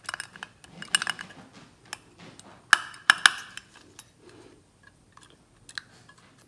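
Metal parts of a Ford flathead fuel pump clicking and clinking as the pump body, diaphragm and rocker-arm linkage are handled during reassembly, with three sharp clicks close together about three seconds in, then fewer and fainter ones.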